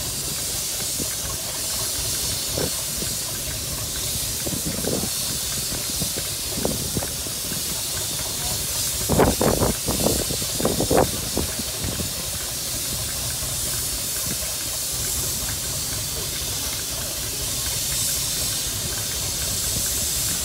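Steady hiss of steam escaping from a standing steam locomotive, with a low rumble beneath. A few short, louder sounds come close together about halfway through.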